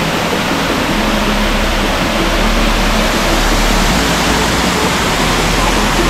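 Waterfall on a mountain stream: water pouring and splashing with a steady, even rush.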